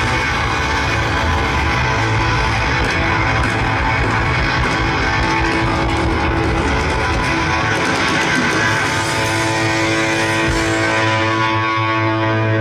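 Rock band playing live, with strummed electric guitar over bass and drums, loud and steady.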